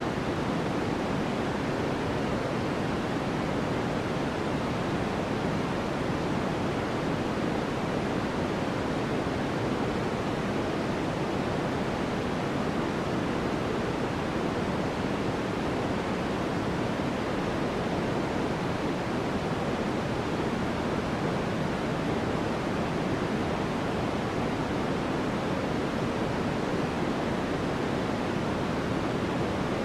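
Steady, unchanging white noise: an even hiss weighted toward the low and middle range, with no separate sounds standing out.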